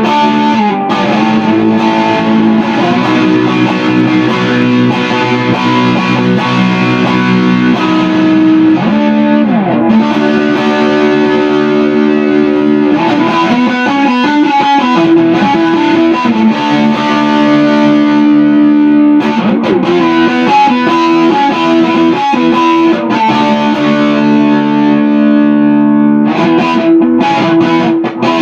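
Electric guitar, a Fender Telecaster, played through distortion: held notes and chords, with the pitch sliding now and then.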